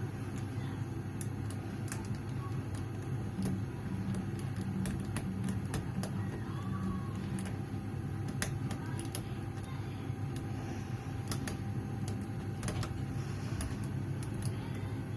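Light, irregular clicks of a lock pick and tension wrench working the pins inside a small Tri-Circle padlock, over a steady low hum.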